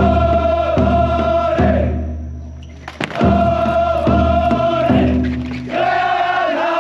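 Large taiko drum of a shachi-daiko float struck in groups of three deep strokes under a group of men chanting a song in unison.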